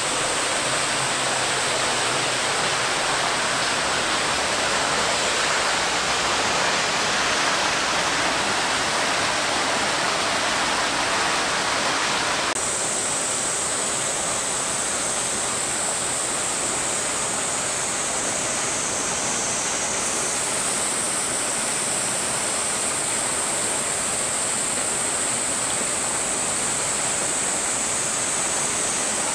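A loud, steady rushing hiss with an even high-pitched band on top. The mix changes abruptly about twelve seconds in: the rushing drops back and the high band comes forward.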